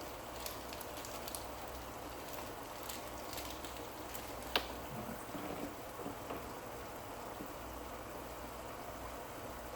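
Hard plastic aquarium filter parts being handled and fitted: light scattered ticks, then one sharp click about halfway through and a few small knocks, over a steady hiss.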